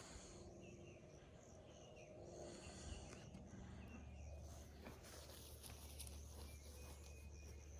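Near silence: faint background room tone, with a faint low hum coming in about three seconds in.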